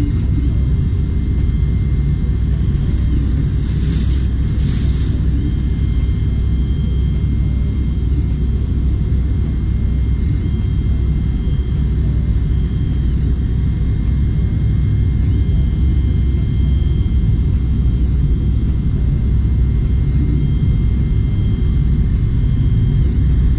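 Anycubic FDM 3D printer running at the start of a print: its fans and motors give a steady heavy rumble, with a faint high steady whine that dips briefly about every two seconds.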